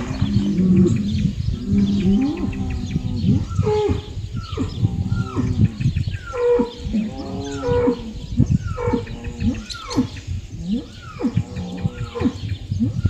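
Several bulls mooing and bellowing over one another. Long, low overlapping moos at first, then from about three seconds in a quick run of shorter calls, each falling in pitch.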